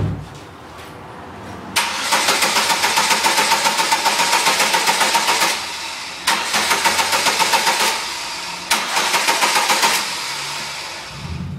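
Car starter motor cranking the engine in three bursts, pulsing about five to six times a second, with a whine running through it. After the last burst the sound dies away without the engine settling into a steady idle.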